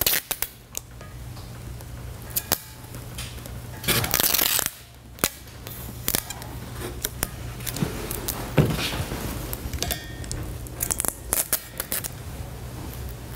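Thick polypropylene tape being pulled off its roll, with a loud ripping stretch about four seconds in, and scattered clicks and light knocks as the tape is handled and pressed onto a steel hitch section. A steady low hum runs underneath.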